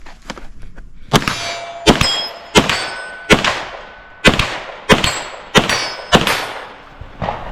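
Eight gunshots in a steady string, roughly one every two-thirds of a second, each followed by the ringing clang of a steel target being hit.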